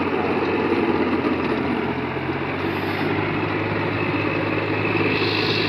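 New Holland four-wheel-drive tractor's diesel engine running steadily under load as it tills deep, flooded paddy-field mud.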